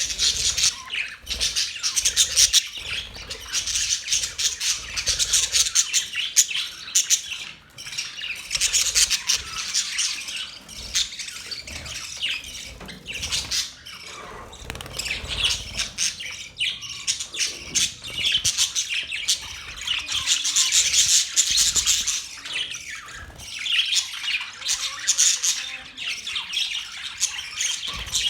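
Pet budgerigars chattering and chirping continuously in a rapid, busy stream of high chirps and squawks.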